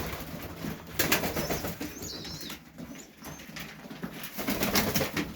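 Pigeons cooing in a loft, with a few high chirps and two bursts of rustling, about a second in and near the end.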